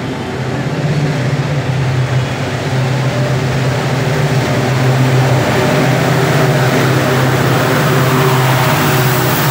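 WDP4D diesel-electric locomotive's two-stroke EMD engine running under power as it approaches and passes at speed: a steady low engine drone that grows louder, with rising wheel-and-rail hiss in the last few seconds.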